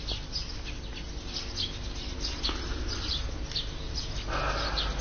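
Small birds chirping over and over, with short, high, falling chirps several times a second. A soft hiss joins about four seconds in.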